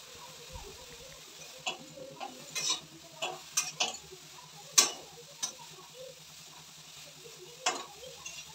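Spatula scraping and knocking against an aluminium kadhai as leafy greens are stirred and cook down over a gas flame, in irregular strokes with the loudest knock about five seconds in, over a soft sizzle.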